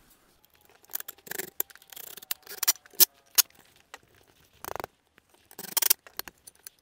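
Scattered clicks, knocks and rattles of a boat seat's metal mounting plate and swivel being handled, with a brief scrape near the end.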